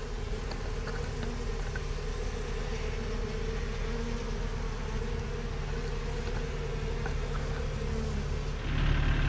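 Honey bees buzzing in a steady hum close by, over a steady low engine rumble that grows louder near the end.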